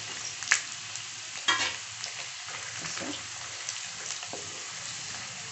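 Hot oil sizzling in a steel kadhai as peanuts and freshly added dry coconut slices fry, stirred with a wooden spatula. Two sharp clacks of the spatula against the pan, about half a second and a second and a half in, stand out over the steady sizzle.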